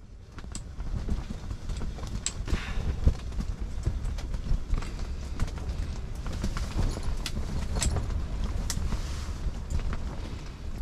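Low wind rumble, with scattered light clicks and taps at irregular moments.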